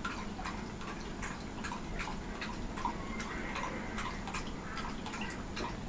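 A run of small, irregular clicks and ticks, about three or four a second, over a low steady background hum.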